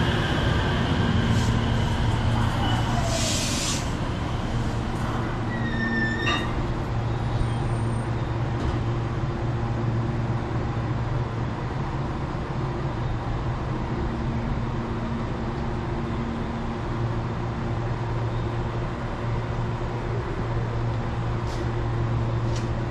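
JR West 227 series electric train pulling into the platform and stopping. Its motor whine falls in pitch over the first few seconds, with a short burst of air hiss about three seconds in and a brief high squeal a few seconds later. The train then stands with a steady low hum from its equipment.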